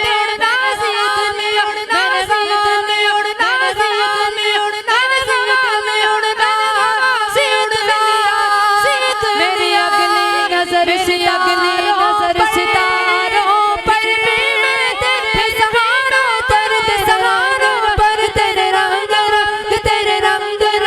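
Devotional Sufi song passage: a wavering, ornamented vocal melody with no clear words, over a steady held note.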